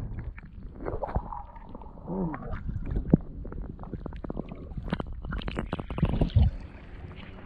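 Shallow river water sloshing and splashing, with a run of small irregular splashes and knocks over a low rumble.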